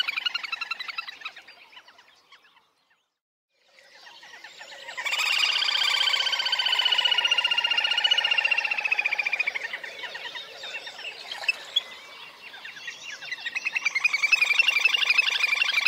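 Little grebe giving its rapid trilling call in long bouts that swell and fade. One bout dies away about two seconds in; the next builds to its loudest and slowly falls in pitch, then another swells near the end.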